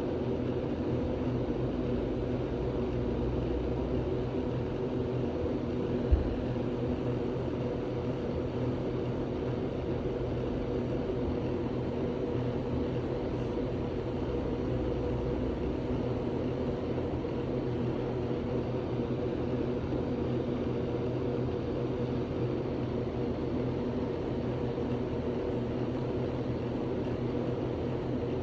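A steady mechanical drone with several held low tones, unbroken throughout, and one short thump about six seconds in.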